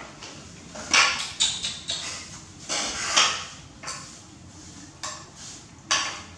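Plates being slid and set down by hand on a tiled floor, a series of short scraping clatters, loudest about a second in and again around three seconds in.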